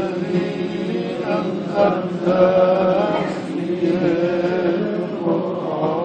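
A man chanting a Ramadan dua (Islamic supplication) in Arabic, holding long melodic notes that waver in pitch, with short breaks between phrases.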